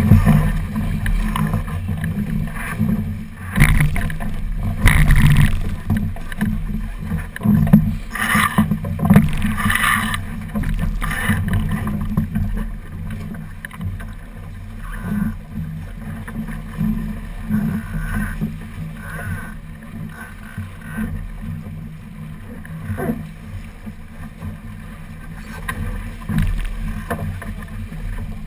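Wind rumbling on the microphone and water rushing along the hull of a small racing keelboat under sail. Through the first ten seconds or so come several sharp knocks and rattles as the crew works the lines; after that it settles to steadier wind and water noise.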